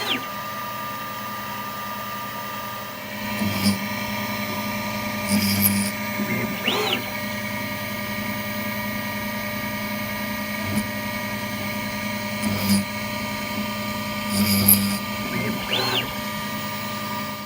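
High-speed spindle of a Techno HD-II 2136 tabletop CNC router running a 1/8 inch drill bit, drilling small holes in thin brass. A steady whine is broken by louder bursts every couple of seconds as the bit plunges and the machine moves between holes. The sound cuts off suddenly at the end.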